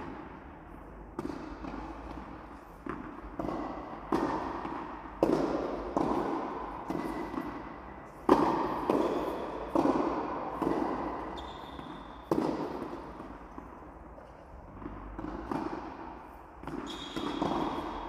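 Tennis ball being hit with rackets and bouncing during a rally on an indoor court: sharp pops at irregular gaps of one to two seconds, each with a hall echo dying away after it.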